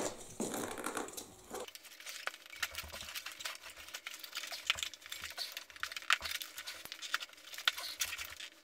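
Bicycle tire being worked onto the wheel rim by hand: scattered, irregular small clicks, ticks and scuffs of rubber and the tire bead against the metal rim.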